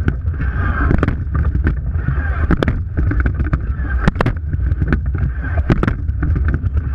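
Wind buffeting a camera mounted on the bow of a rowing eight under way, over water rushing along the hull and a crackle of spray and knocks, with a louder knock about every second and a half.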